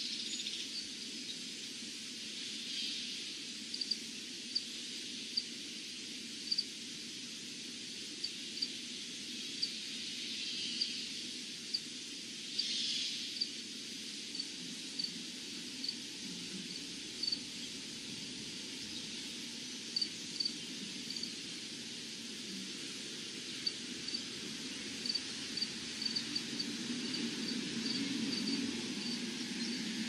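Steady high drone of insects, with short high chirps that repeat irregularly about once a second, sometimes several in quick succession, over a low steady hum.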